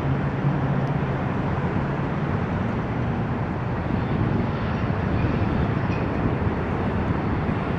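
Boeing 777 jet engines running at takeoff power: a steady, dense rush with a low hum that fades out about two and a half seconds in.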